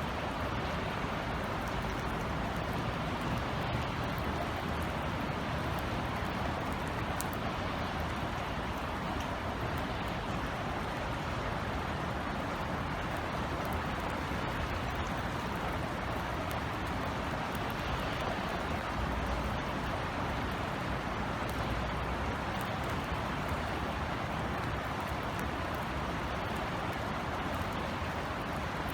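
Steady summer rain falling as an even hiss, with faint drop ticks and a low background rumble of the city.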